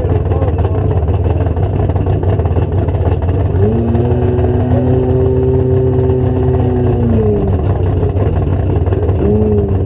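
Drag car's engine idling at the start line with a loud low rumble; about three and a half seconds in it is revved up and held at steady higher revs for about three and a half seconds before dropping back, then briefly revved again near the end.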